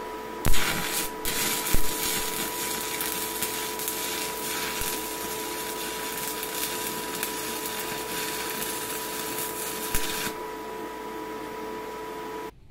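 Stick welding arc: struck with a sharp crack about half a second in, then a steady crackling hiss that breaks off about ten seconds in, over a steady hum that carries on until just before the end.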